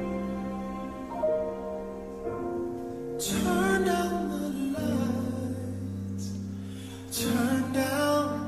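Slow, tender background music of sustained chords, with a sung melody coming in about three seconds in and again near the end.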